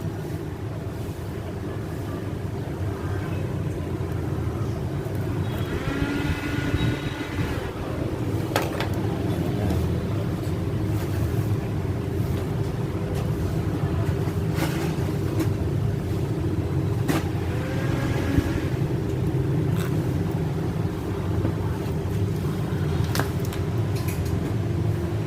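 Steady low rumble of street traffic with motorbikes. A short pitched honk comes about six seconds in, and a few sharp clicks are scattered through.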